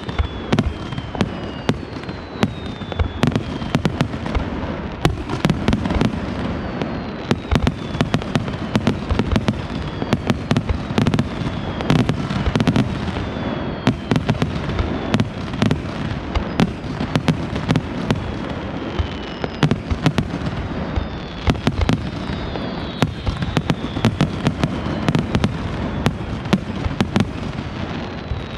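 Aerial fireworks display: a dense, continuous barrage of shell bursts and sharp crackling reports over a steady rumble, with whistles that fall in pitch, heard again and again.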